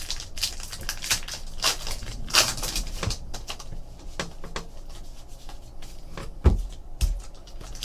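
Trading card packs and cards being handled: wrapper crinkling and tearing and cards sliding against each other in quick irregular strokes, with a low knock on the table about six and a half seconds in.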